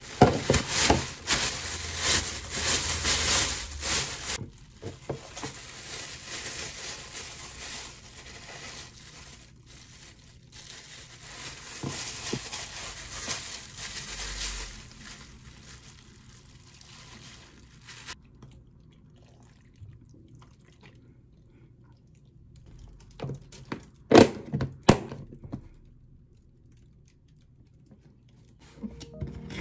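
Plastic bags rustling and crinkling, loud for the first few seconds and then softer and on and off, as kimchi in a plastic bag is handled over a plastic food container. Later, after a quiet stretch, there are two sharp knocks about a second apart.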